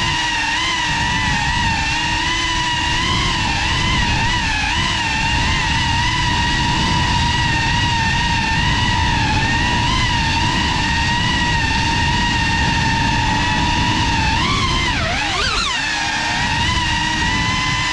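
Motors and propellers of a GEPRC Cinelog35 FPV cinewhoop drone whining in flight, the pitch wavering as the throttle changes. About fifteen seconds in the pitch dips and then shoots back up as the throttle is cut and punched again. A low rumble runs underneath.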